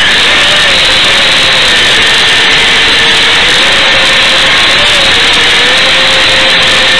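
Loud, steady static hiss on the audio track of Eachine EV800D goggles' DVR, the empty audio channel of an analog FPV video receiver, with a faint whine wavering up and down in pitch underneath.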